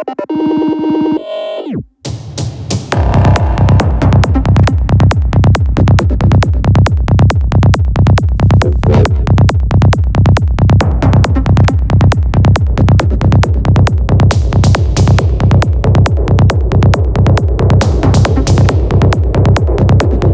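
Progressive electronic dance music. After a short break with a rising synth sweep, the kick drum and bass come back in about three seconds in, with a steady beat of about two a second.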